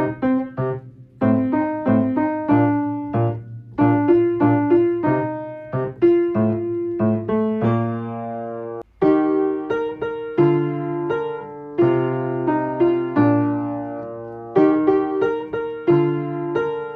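Solo piano playing a simple children's song accompaniment: a melody of struck notes over low bass notes, pausing briefly about halfway through before the next phrase.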